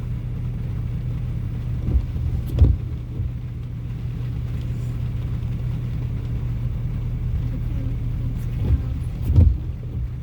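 Steady low hum of a car's engine and cabin while the car sits or creeps along, broken by a few dull thumps, two about two seconds in and two more near the end.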